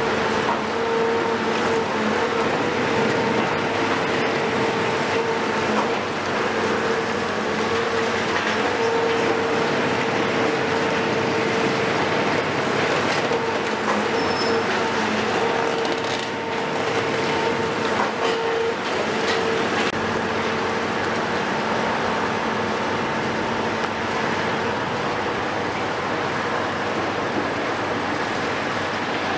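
Caterpillar 374F demolition excavator working under load, its Cat C15 diesel and hydraulics running hard with a steady whine that drops away about two-thirds of the way through. Scattered cracks and crunches come from the crusher jaws biting reinforced concrete.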